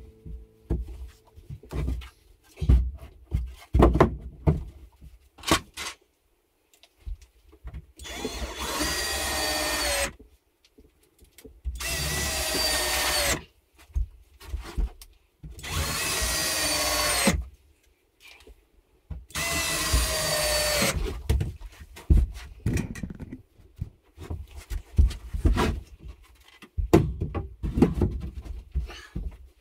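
Cordless drill running into wooden wall boards in four separate runs of one to two seconds each, its whine dropping in pitch as it works into the wood, typical of driving screws. Short knocks and taps of the boards being handled and set in place come before and after the runs.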